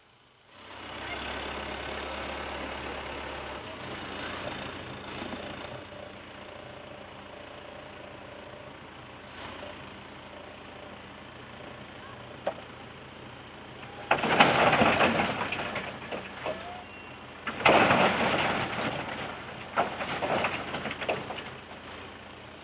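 Steam hissing from an Austerity 0-6-0 saddle tank locomotive, a steady hiss that starts suddenly. In the second half come two much louder, rough rushing bursts of a couple of seconds each.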